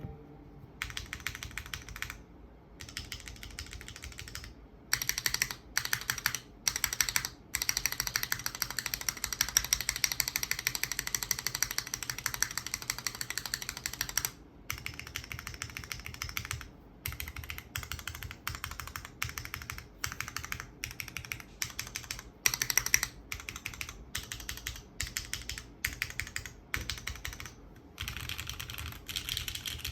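Typing on a custom mechanical keyboard with lubed and filmed Cherry MX Black linear switches in an aluminium leaf-spring plate, under GMK keycaps. The keystrokes come in quick runs broken by short pauses, with one longer unbroken run in the middle.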